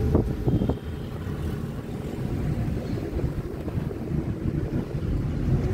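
Road and engine noise inside a moving car: a steady low rumble with some wind hiss. A few short knocks sound in the first second.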